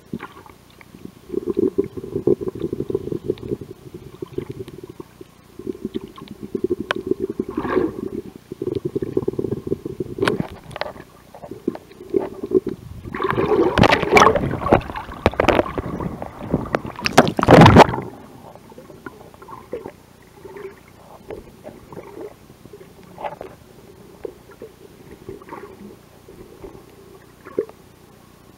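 Underwater sound picked up by a handheld camera: muffled water movement and handling rumble with small crackles. Around the middle, loud splashing and bubbling water churns around the camera for about five seconds and cuts off suddenly, leaving quieter underwater ambience with faint ticks.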